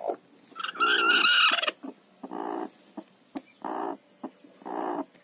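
A broody hen sitting on eggs gives one loud squawk about a second in, then three short clucks about a second apart.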